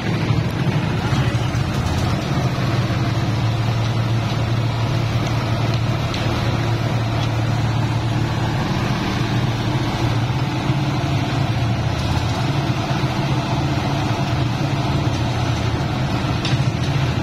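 Portable concrete mixer's small engine running at a steady speed.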